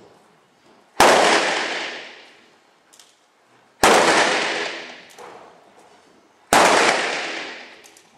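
Three loud gunshots about three seconds apart, each a sharp crack that dies away in a long echo lasting about two seconds.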